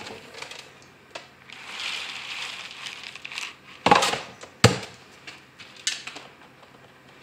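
Chicken feed pellets poured from a scoop into a hanging plastic feeder, rattling and sliding for a second or so, then two sharp knocks about four seconds in and a lighter one shortly after.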